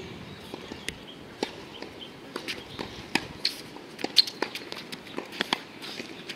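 Scattered sharp taps and clicks of tennis play on an outdoor hard court: players' footsteps and the ball being bounced and struck. The loudest crack comes about four seconds in.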